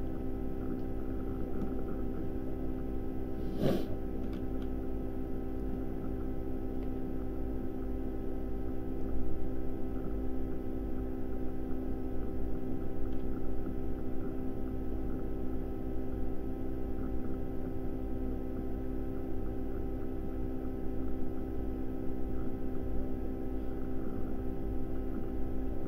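Steady electrical hum made of several constant tones over a low rumble, with one sharp click about four seconds in.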